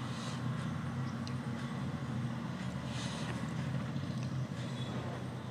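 Jalebi batter frying in hot oil in an iron kadai, a steady sizzle over a constant low hum.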